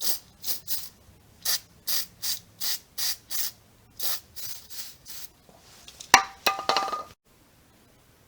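A run of about fourteen short hissing bursts, like spurts from a spray can, then a sharp click about six seconds in and a few ringing metallic clinks, which stop abruptly.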